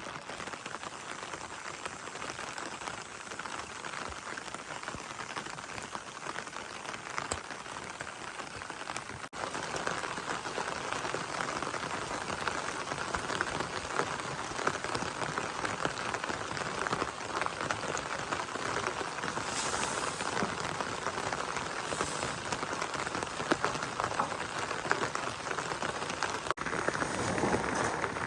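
Steady rain falling, with many separate drop hits through it. It gets a little louder after a brief break about a third of the way in.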